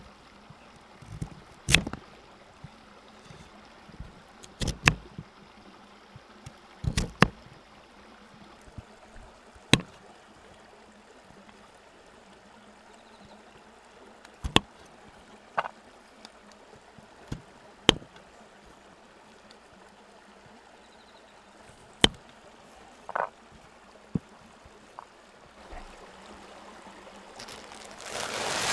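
Kitchen knife cutting through a sweet potato and knocking on a wooden cutting board: single sharp knocks a few seconds apart, sometimes two close together. Near the end, water starts pouring into an aluminium tray with a rising splashing wash.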